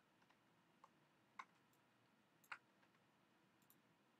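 Near silence broken by a few faint, sharp computer mouse clicks, the clearest about one and a half and two and a half seconds in.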